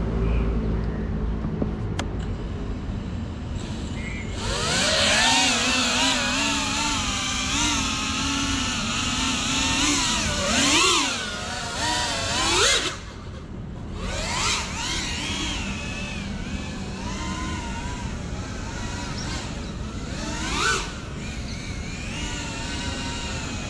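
GEPRC CineLog 35 cinewhoop's brushless motors and ducted propellers whining. The motors spin up about four seconds in, and the pitch then wavers up and down with the throttle. There are sharp throttle punches that rise steeply, and the sound drops away briefly about thirteen seconds in.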